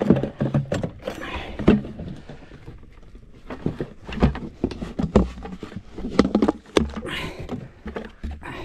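Handling noises in an inflatable boat: irregular knocks, taps and rustles of a freshly unhooked small pike and fishing tackle being moved about, with a few heavier thumps about four to six seconds in.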